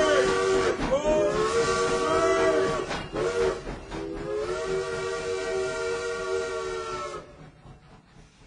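Steam locomotive whistle sounding a multi-note chord in several blasts, each sliding up into pitch at its start. The last and longest blast cuts off about seven seconds in, leaving a fading hiss of steam.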